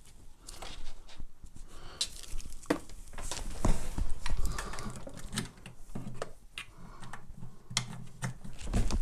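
Handling of a headset's USB cable and plug on a desk: scattered clicks, knocks and rustling as the cable is plugged in, with a few heavier thumps about four seconds in.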